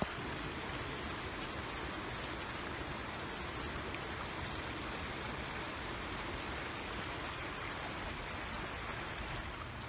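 Steady rush of running water from a stream, an even hiss with no breaks.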